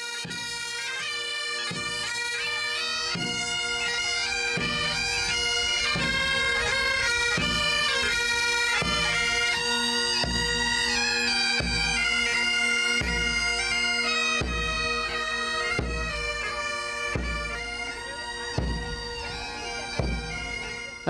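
A band of Highland bagpipes playing a march tune in unison over their steady drones, with a regular low beat about once a second.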